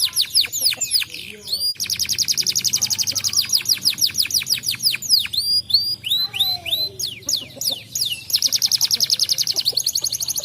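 Domestic canary singing: long, fast trills of rapidly repeated high notes, broken around the middle by a run of slower swooping notes that rise and fall, then back into a fast trill.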